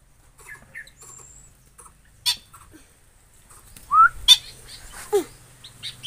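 Aviary birds calling: short chirps, a rising call about four seconds in and a falling call soon after, with two sharp, loud sounds about two and four seconds in.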